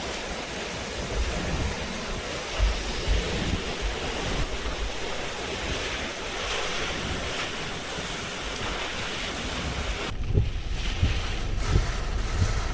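Hurricane-force wind just outside a major hurricane's eyewall, a loud rushing hiss with gusts buffeting the microphone. About ten seconds in the hiss thins and low thumps of wind hitting the microphone take over.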